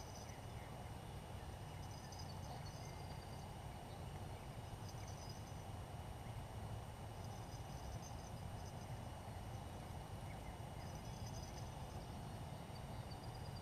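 Faint open-air ambience: a steady low rumble with short, high-pitched chirps every couple of seconds.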